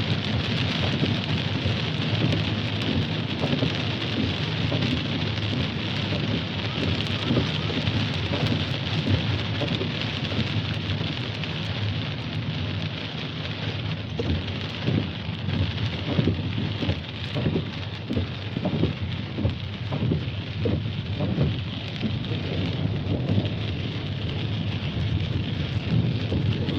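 Steady rain falling and splashing on hard surfaces, with a low rumble under it. From about halfway through, single heavier drops or drips stand out as separate splats.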